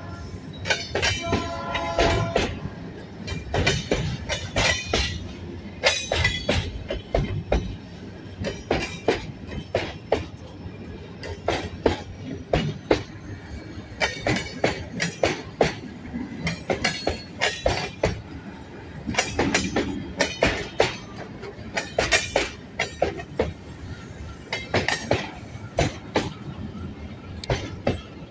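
Loaded freight wagons, grain hoppers and container cars, rolling slowly past, their wheels clacking irregularly over the rail joints. A train horn sounds for the first couple of seconds and then stops.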